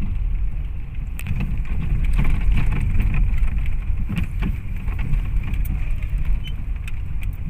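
Car driving along a street, heard from inside the cabin: a steady low rumble of engine and tyres, with scattered small clicks.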